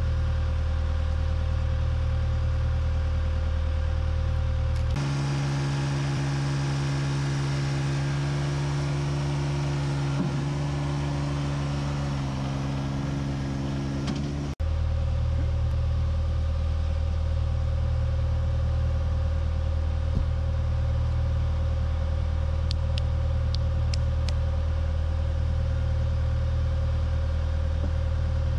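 Diesel engine of a John Deere 120 excavator running steadily at constant speed. About five seconds in the hum switches abruptly to a different, higher-pitched engine note, and it switches back about halfway through.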